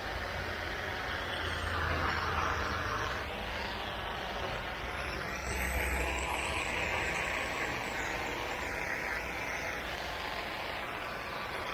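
A soft-wash spray hissing onto concrete over the steady hum of an engine, the spray swelling louder twice.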